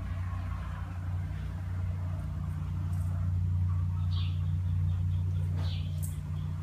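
A steady low hum, with a small bird chirping briefly twice, about four and five and a half seconds in.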